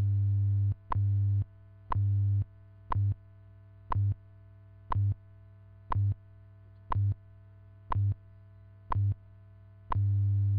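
WWV time-signal broadcast received by radio: a short beep-like tick every second. After each tick comes a low buzzing pulse of the 100 Hz time code, some short and some long, with longer marker pulses at the start and again near the end.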